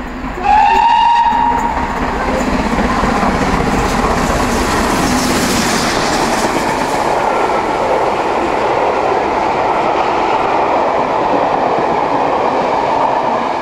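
A GWR Castle class four-cylinder steam locomotive passes at speed, giving one whistle blast of just over a second about half a second in. It then runs by with its coaches in a steady loud rush of wheel and rail clatter.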